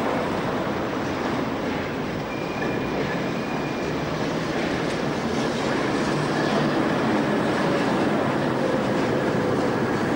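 Tatra T3 trams running past at close range, with a steady rumble of wheels on rails. A faint high wheel squeal sounds for a couple of seconds about two seconds in.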